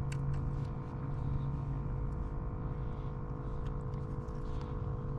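A motor hums at a steady, unchanging pitch, with a few faint small clicks over it.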